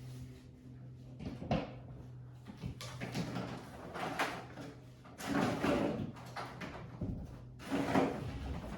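Several short bursts of scraping and knocking from things being handled, with a steady low hum underneath.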